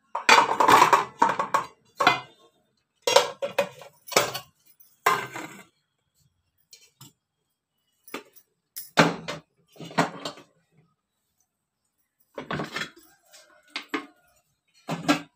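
Stacked metal cooking pots and pans clattering and clanking in bursts as they are lifted, shifted and set down, loudest in the first couple of seconds.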